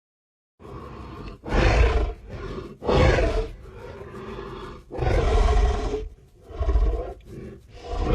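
Creature sound effect for Daeodon, a giant boar-like entelodont: a rough, deep growl broken by four loud roars, the longest about a second, with another roar starting near the end.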